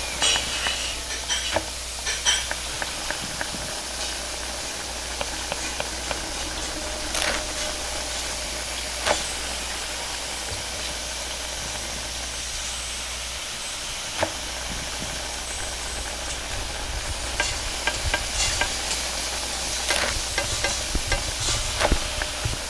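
Food sizzling in a wok over a high gas flame, a steady hiss, with scattered clanks of a metal ladle against the wok that come more often near the end as noodles are stir-fried.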